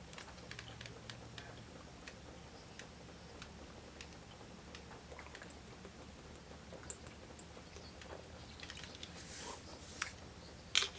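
Quiet eating: faint chewing and scattered small clicks, with a few sharper clicks near the end.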